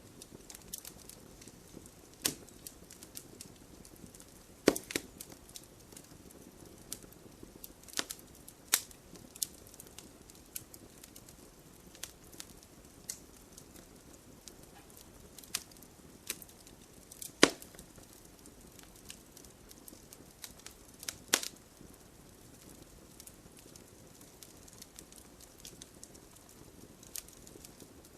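Wood fire crackling: irregular sharp pops and snaps over a soft steady hiss, with a few much louder pops scattered through.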